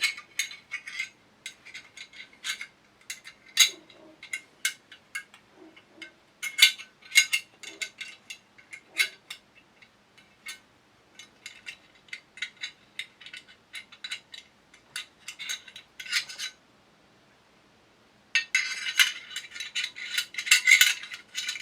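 Small steel shotgun parts clicking and clinking against the receiver as a part is fitted into place by hand: scattered sharp clicks, a short pause near the end, then a dense flurry of metal clicking and scraping as the piece goes home.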